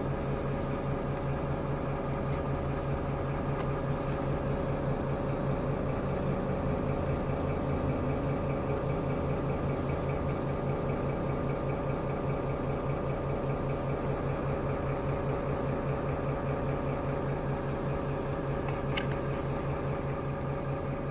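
Inside a city bus: the engine runs with a steady, even drone and a fast pulsing low hum, with a few faint clicks.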